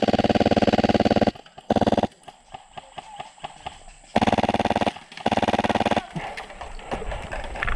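Full-auto airsoft gun firing four bursts of rapid shots, the first lasting over a second, a short one soon after, then two more back to back about four seconds in; this is covering fire. Rough rustling movement noise follows.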